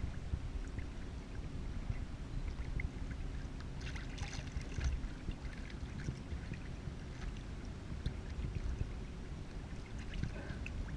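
Small choppy waves lapping and splashing against a kayak's hull under a steady low rumble, with a busier patch of splashing about four seconds in and again near the end.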